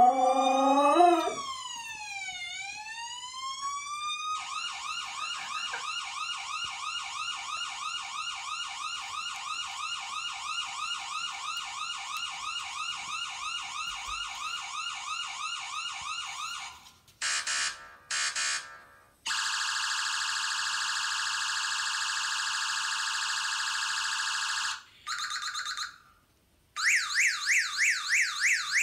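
A husky's howl trails off about a second in. Then an electronic siren cycles through its patterns like a car alarm: a slow falling-and-rising wail, a long fast warble, a few short beeps, a steady high tone, then after a short gap the fast warble again.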